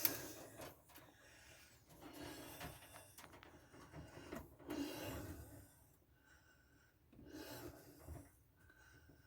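Faint rubbing and scraping in a few short spells, from electrical wire ends being handled and stripped of their insulation.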